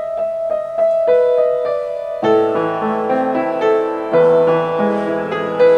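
Instrumental title music: a melody of separate notes, joined by fuller chords about two seconds in.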